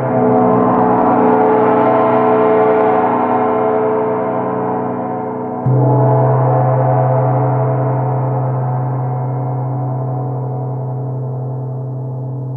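24-inch Grand Master Turkish Cymbals gong ringing with a full wash of overtones, its 'breathing' sound. It is struck softly just after the start and again near the middle, the second stroke bringing up a strong deep hum, and then rings out in a long decay as the high shimmer fades.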